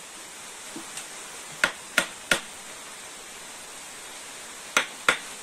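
A wooden mallet block striking the handle of a chisel cut into a green bamboo post: three sharp knocks about a third of a second apart near the middle, and two more near the end, over a steady hiss.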